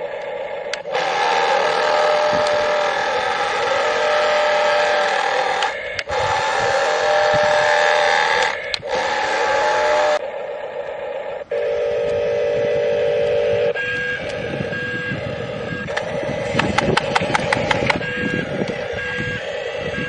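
Electronic sound effects from an RC toy road roller's built-in speaker, a tinny engine-and-vibration noise that switches between several short clips. It gives way in the last few seconds to short repeated beeps and a few clicks.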